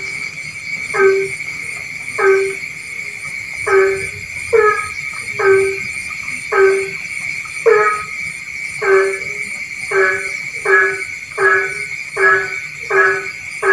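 Rice-field frog croaking repeatedly, a short low call about once a second that comes faster toward the end, over a steady high-pitched background drone.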